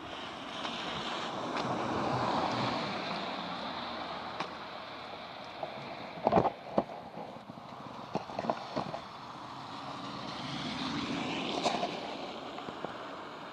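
Rubber Muck Boot Woody Pro boots wading through deep, slushy puddle water: a continuous swishing and sloshing that swells and fades with the strides, with a few sharp knocks in the second half, the loudest about six seconds in.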